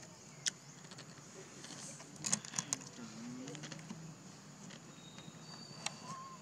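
Forest ambience: a steady high insect hum with a few faint bird notes. Scattered sharp clicks come through it, a quick cluster of them about two seconds in.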